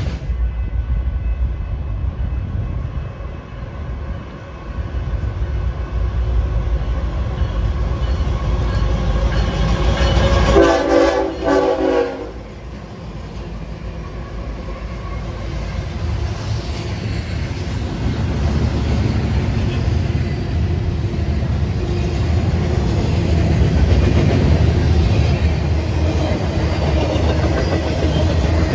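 Train running past on the tracks with a steady low rumble and wheel clatter, and a locomotive horn sounding one short blast about ten seconds in. The rumble eases briefly after the horn, then builds again near the end.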